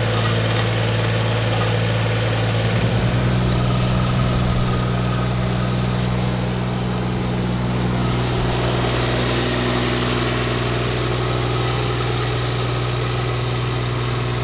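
Tilmor 520 row-crop tractor's engine running steadily under load as the tractor works implements through the soil. The engine note shifts slightly about three seconds in.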